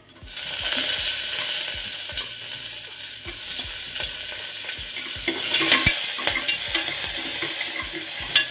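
Food sizzling in a hot pan, with scattered scrapes and taps of a spatula stirring it. The clatter is busiest about five to six seconds in.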